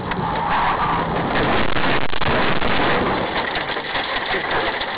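A car on the move: steady engine hum under continuous road and wind noise.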